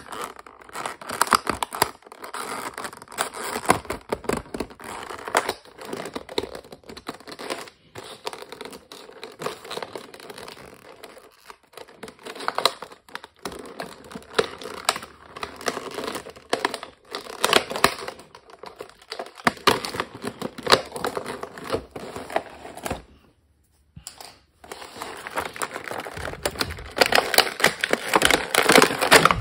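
Clear plastic blister packaging crinkling and crackling as it is handled and cut free from its cardboard backing card with a small knife. A short pause comes about two-thirds of the way through.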